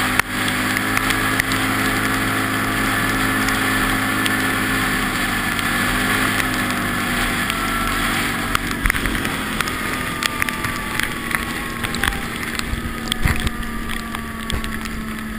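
Quad bike (ATV) engine running steadily while riding, with wind noise on the microphone. From about eight and a half seconds in, sharp knocks and rattles come through, and the engine note slowly falls over the last few seconds.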